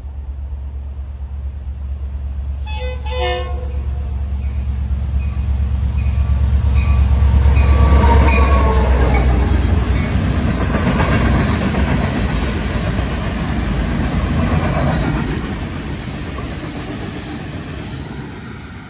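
A diesel-hauled freight train approaches and passes. About three seconds in, the locomotive horn gives a short blast. The engine rumble builds to its loudest around eight seconds in, then the freight cars roll by with clattering wheels and rail noise that fades toward the end.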